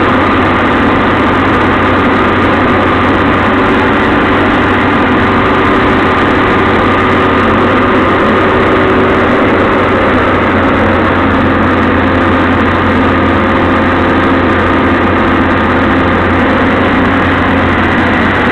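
CAT 320C excavator's diesel engine running steadily, heard from inside the cab: a steady drone with a constant higher tone on top, while the boom and bucket are cycled to warm up the hydraulics.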